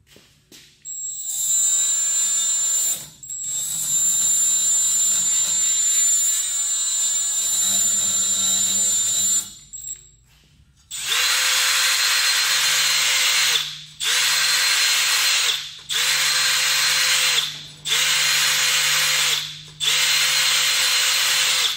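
Cordless power tool grinding rust off the face of a Toyota Tacoma's front wheel hub, with a steady high whine. It runs in bursts: one longer stretch of several seconds, then five runs of about two seconds each with short pauses. It is taking down the rust high spots so a new brake rotor will sit flat on the hub.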